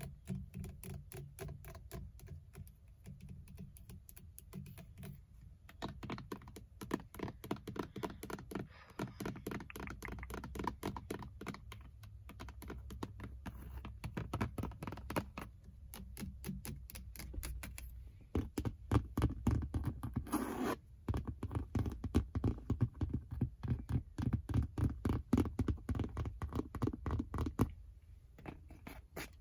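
Long fingernails tapping and scratching quickly on a Ford Mustang's leather steering wheel and interior trim, a dense run of light clicks and scrapes. The tapping is sparser and quieter for the first few seconds, then busier and louder until easing near the end.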